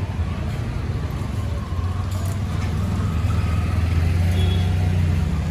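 A vehicle engine running close by over general street noise. It grows louder from about two seconds in and eases off near the end.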